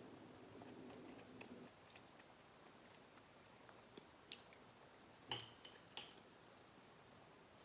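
Faint chewing of food, then a few sharp clicks and clinks, like a utensil against a dish, about four to six seconds in.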